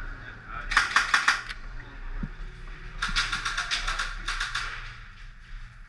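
Airsoft guns firing in rapid bursts of sharp clicking shots: a short burst about a second in, then a longer run of bursts from about three seconds in.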